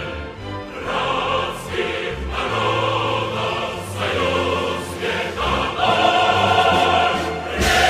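Choral music: a choir singing held notes over a low bass line, the chords changing about once a second.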